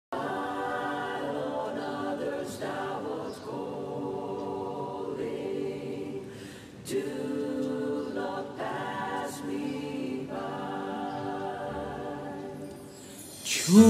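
Wordless choir singing held chords, a new chord every second or two.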